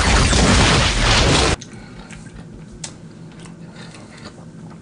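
Explosion sound effect: a loud blast of noise that cuts off suddenly about a second and a half in. It is followed by quiet room tone with a few faint clicks.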